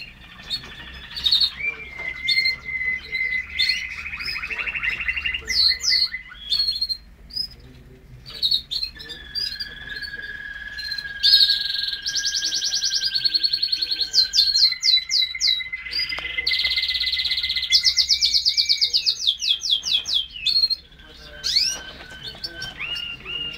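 Parisian frill canaries singing a long, continuous song of fast rattling trills, long held whistled notes and quick rising phrases, with a brief pause near the end.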